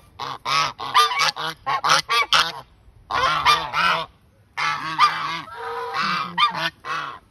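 White Chinese geese honking loudly at close range, in quick runs of harsh, repeated calls with a couple of short pauses.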